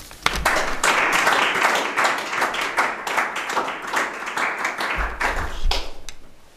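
Small audience applauding, the clapping starting abruptly and dying away near the end.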